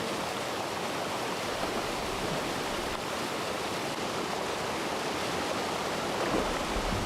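Steady rush of river water, an even, unbroken noise.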